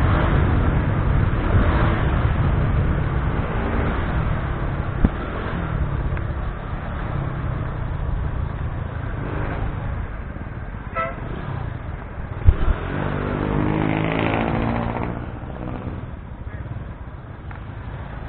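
A motorcycle engine runs at low riding speed, picking up a couple of times and easing off near the end. A short horn beep sounds about eleven seconds in, and two sharp knocks come around five and twelve seconds in.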